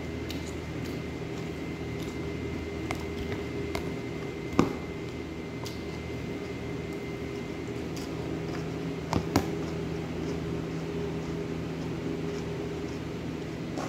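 Eating by hand and with a spoon: light clicks and scrapes against a plate and a plastic salad container, with a sharper clink about four and a half seconds in and two close together just after nine seconds. A steady hum runs underneath.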